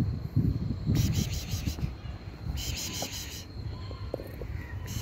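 Insect chirping in two short pulsed trills of about a second each, at about seven pulses a second, over a low rumble.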